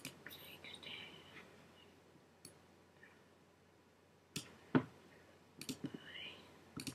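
Quiet, scattered clicks of a computer mouse and keyboard, with one sharper click a little before five seconds in and a quick run of clicks near the end.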